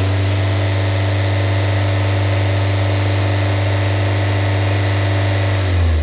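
Car engine held at raised revs with the throttle open, a steady even drone, dropping back toward idle near the end. It is running lean on a deliberately induced vacuum leak through the opened purge valve, and the higher RPM brings the fuel trim down.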